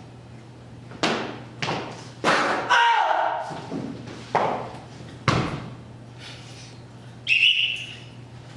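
A run of about seven sharp thuds and bangs, each dying away, as two actors drop to the stage floor. A short high tone comes near the end. A steady low hum runs underneath.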